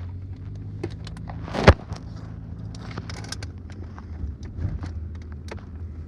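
Car engine running with a steady low hum, heard from inside the car, with scattered light clicks and one sharp knock a little under two seconds in.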